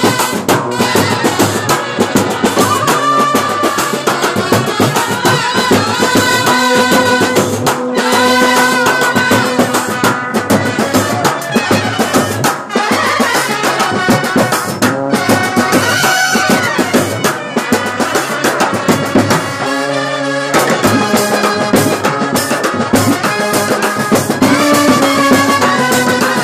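Kerala bandset brass band playing: trumpets carry the tune over side drums, a set of stand-mounted drums and a cymbal, with the drums beating continuously.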